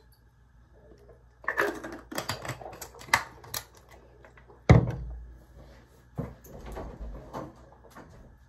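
A run of clicks and rattles as a plastic mouthwash bottle is handled and capped, then one heavy thud about halfway through, followed by softer knocks and clicks.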